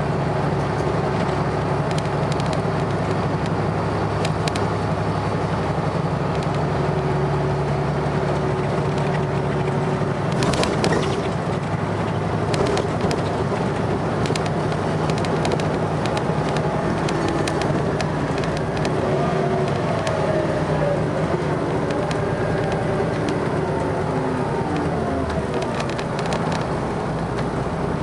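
Volvo B7RLE bus's diesel engine running steadily. About ten seconds in there is a clunk and the engine note changes, and in the second half whining tones from the drivetrain rise and step in pitch.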